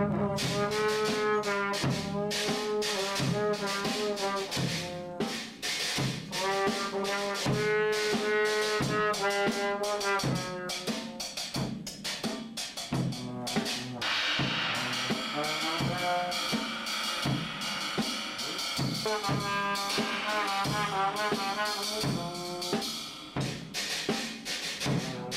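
A brass horn blowing long, wavering held notes while a drum kit is struck over and over.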